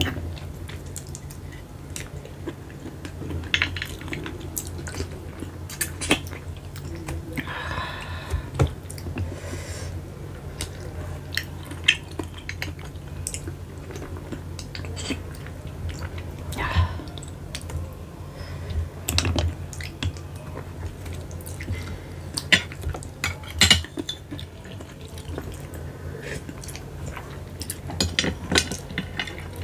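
Close-miked eating of keong macan (spotted babylon sea snails) in balado sauce: wet sucking and slurping of the meat and sauce from shells and fingers, with many sharp clicks of shells and a metal spoon against the glass bowl. A steady low hum runs underneath.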